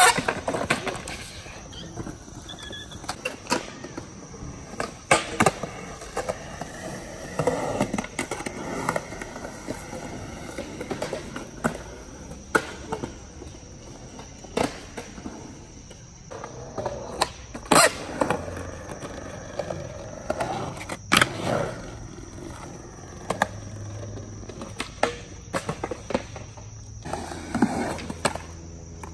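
Skateboard wheels rolling on concrete, broken repeatedly by sharp wooden clacks of boards popping and landing.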